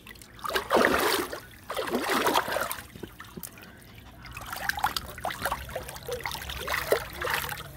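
Water splashing and sloshing in a shallow plastic paddling pool as it is stirred. There are two louder splashes about one and two seconds in, then lighter trickling splashes.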